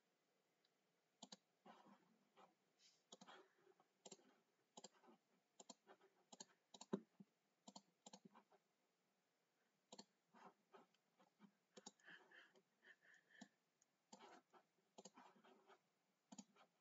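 Faint computer mouse clicks at irregular spacing, one or two a second, as colours are picked and areas filled with the paint-bucket tool in Microsoft Paint.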